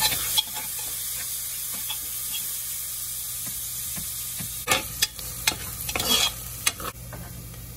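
Chopped onion, garlic, ginger and green chili sizzling steadily in hot olive oil in an aluminium pressure cooker, while a steel spoon stirs them; in the last few seconds the spoon scrapes and knocks against the pot several times in quick succession.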